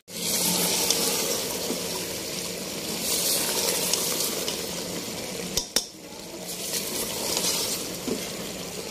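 Chicken feet sizzling in thick masala gravy in an aluminium pot while a metal spoon stirs them and scrapes the pot. Two sharp taps of the spoon on the pot come a little over halfway through.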